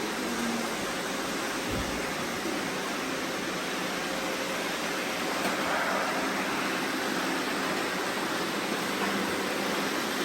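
Robot vacuum cleaners running: a steady rushing noise of motors and brushes with a faint hum, and a soft low thud about two seconds in.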